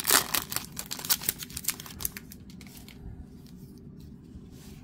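Foil wrapper of a 2022 Prestige football card pack crinkling and tearing as it is peeled open, a dense crackle for about the first two seconds. After that come only faint handling sounds as the cards are taken out.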